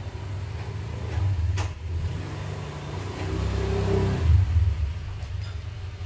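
A steady low engine rumble that swells louder about three to four seconds in, with a couple of light clicks.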